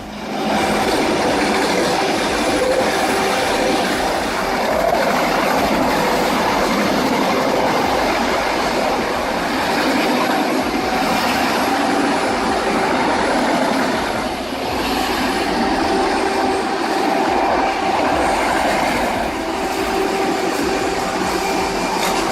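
Large diesel-powered industrial shredder running continuously, a loud steady grinding noise with a couple of held tones and a faint high whine, dipping briefly about two-thirds of the way through.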